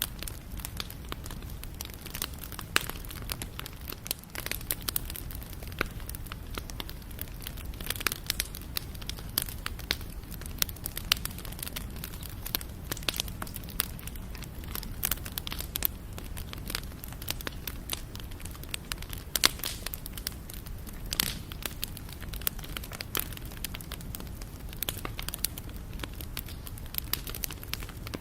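Wood fire crackling: dense, irregular pops and snaps over a low steady rumble of burning.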